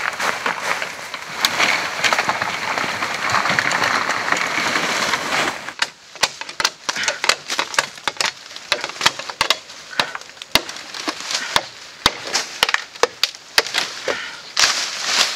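A rustling, crackling noise of bamboo leaves and brush for the first five seconds or so. It gives way to sharp, irregular knocks, about one or two a second, as a machete strikes a bamboo pole to trim it.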